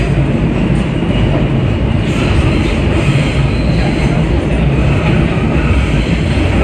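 Alstom R160A subway train running between stations: a steady, loud rumble of steel wheels on rail and the car body in motion.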